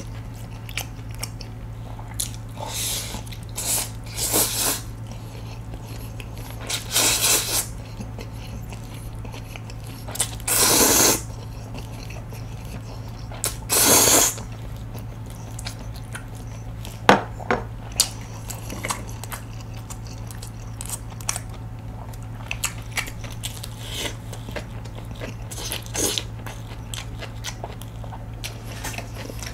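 Close-miked eating of jjajangmyeon: noodles slurped in several short bursts, the loudest about ten and fourteen seconds in, then chewing with wet smacks and small clicks. A steady low hum lies underneath.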